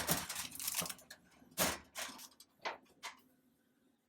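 Clattering and rattling from a vending machine being opened and handled, then three separate sharp knocks over the next couple of seconds before it goes quiet.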